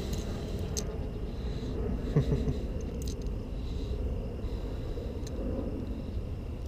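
Handling noise with a few light clicks and a short knock a couple of seconds in, over a low steady rumble and a faint steady high insect drone.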